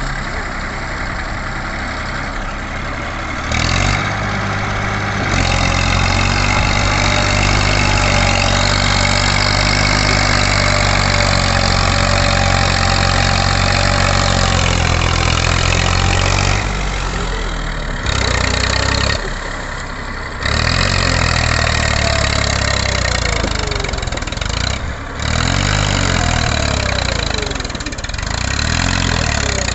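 Massey Ferguson 241 tractor's diesel engine running, steady through the first half, then changing speed in the second half, its pitch rising and falling several times.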